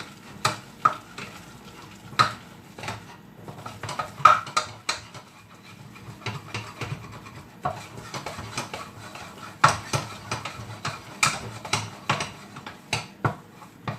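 Thick choux dough (flour, butter and water) being stirred hard in a saucepan. The utensil knocks and scrapes against the pan in irregular strokes, more often in the second half, as the flour is worked in until the dough gathers into a ball.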